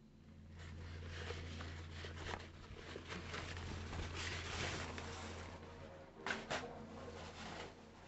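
Rustling and scuffing handling noise close to the microphone, with two sharp clicks in quick succession about six seconds in, over a steady low hum.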